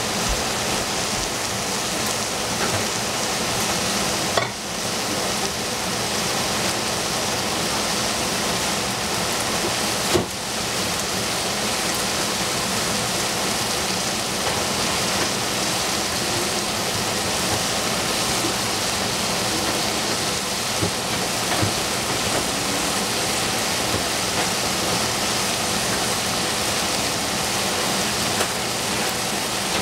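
Food sizzling steadily in a hot frying pan, with a couple of brief knocks partway through.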